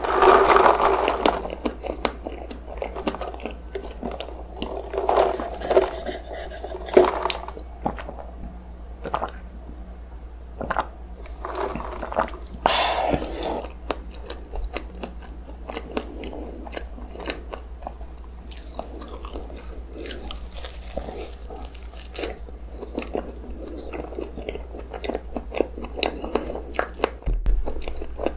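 Close-miked chewing of soft cream-filled sponge roll cake: wet, irregular mouth sounds and lip smacks, with louder moments in the first second and around the middle.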